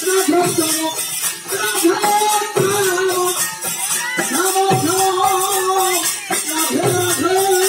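Devotional aarti music: a sung melody in drawn-out phrases over fast, steady jingling percussion.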